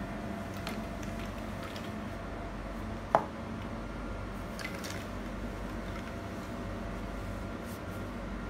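Plastic chess pieces being gathered and slid across a vinyl board, with faint scattered clicks and one sharp clack about three seconds in as pieces knock together or against the table.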